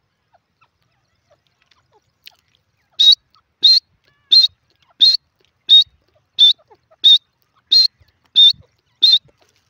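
Grey francolin calling: a run of ten short, sharp, high calls at an even pace of about one and a half a second, starting about three seconds in.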